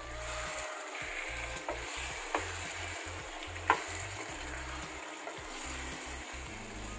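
A spoon stirs a thick potato and brinjal curry in a pan over a steady sizzle. The spoon clinks against the pan a few times, loudest about three and a half seconds in.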